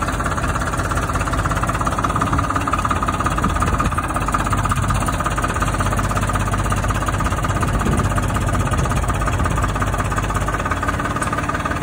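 Farmtrac 60 tractor's diesel engine running steadily.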